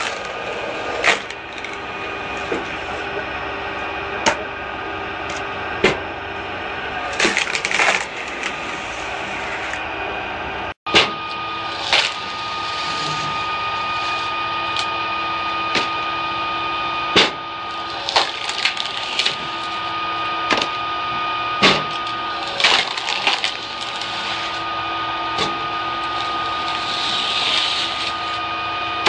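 Screw log splitter driven by a 7.5 kW low-speed electric motor, running with a steady hum while its threaded cone bores into logs. Repeated sharp cracks and splintering as the wood splits apart, about every one to two seconds.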